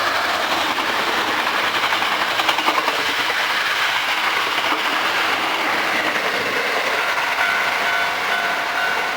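Eight-car Hankyu 8300 series electric train passing through a level crossing, its wheels clattering over the rail joints. The crossing's warning bell rings out again through the train noise from about seven seconds in.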